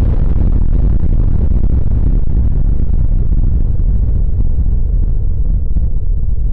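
The low rumble of an explosion sound effect dying away. The hiss on top slowly fades until mostly the deep rumble is left.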